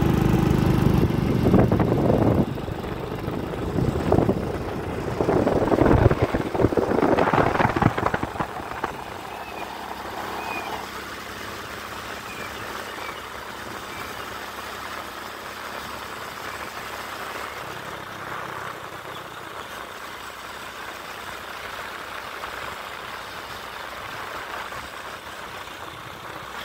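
Motorcycle running along a road with wind buffeting the microphone. It is loud and gusty for the first eight seconds or so, then settles into a quieter, steady running sound.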